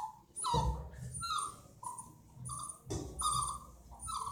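A puppy whining and crying in a string of short, high whimpers, about one every half second, upset at being bathed. A couple of dull bumps come with them.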